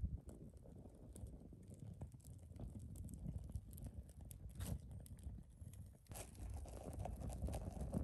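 Campfire of dry palm fronds and deadwood burning: a low rumble of flame with scattered crackles and pops, two sharper cracks about four and a half and six seconds in.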